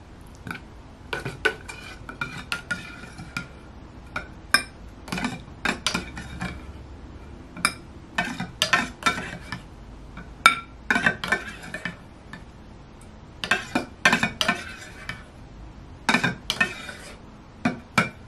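A metal seafood fork scraping and clinking against the inside of an opened round tin can, scooping sardines out of the brine. The clinks come in irregular clusters, many with a short metallic ring.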